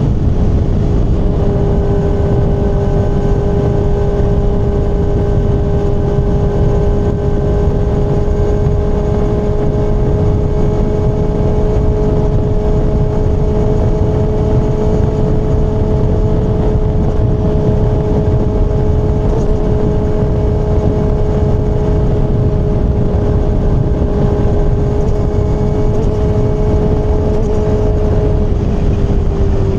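Kawasaki ZX-6R inline-four sport bike engine running at steady, fairly high revs while cruising, its pitch held almost level and easing down slightly near the end. Heavy wind and road rumble lie underneath.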